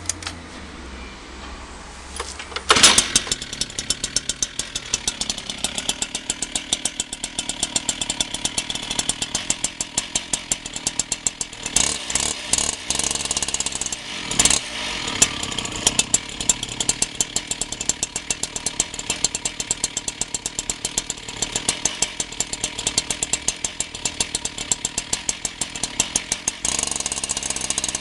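Stihl TS 410 cut-off saw's two-stroke engine, warm, catching about three seconds in and then running with a fast, uneven popping beat. It is blipped briefly a couple of times around the middle and speeds up near the end.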